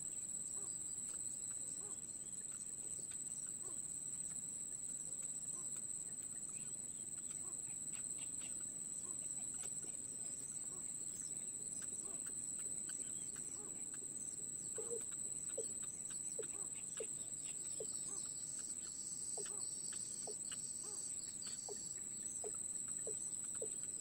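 Insects buzz in one steady high-pitched drone throughout. From about halfway a series of short, low call notes repeats at roughly one and a half a second.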